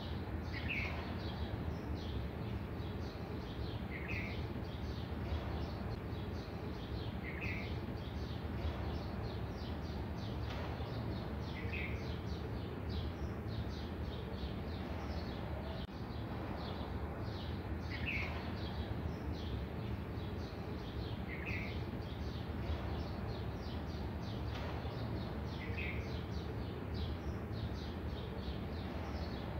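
Black marker drawing strokes on a white board, faint and scratchy, over a steady background hiss and hum. A short high chirp recurs every three to four seconds.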